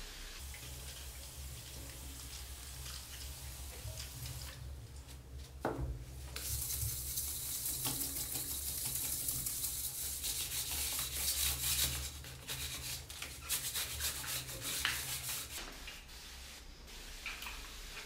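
Hand float rubbing in quick strokes over a gypsum plaster wall wetted with a spray bottle, a gritty scraping that grows louder about six seconds in and comes in two spells: the plaster's top layer being rubbed smooth while the layer beneath has already set.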